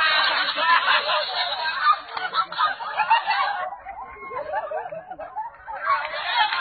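A crowd laughing, with voices mixed in. It eases off a little past the middle and swells again near the end.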